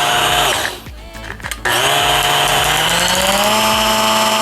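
Cuisinart hand blender's motor running at low speed with the stainless steel blending shaft, unloaded in the air, a steady whine. It switches off about half a second in and winds down, then starts again about a second later, its pitch climbing a little before it holds steady.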